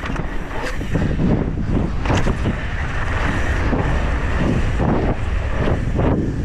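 Wind rushing over a GoPro microphone during a fast mountain bike descent on a dirt track, with the tyres rumbling over the ground and the bike rattling and knocking over bumps now and then.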